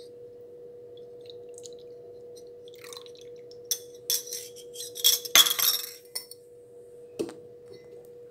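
Stainless steel bowl and small pot clinking and scraping together as coconut milk is poured from the bowl into the pot, with a flurry of clinks about four to six seconds in and one more knock near the end.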